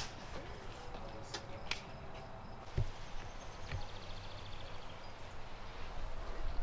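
Outdoor ambience: a steady low rumble of wind on the microphone, with a few faint clicks, a couple of dull knocks near the middle and a brief faint high trill about halfway through.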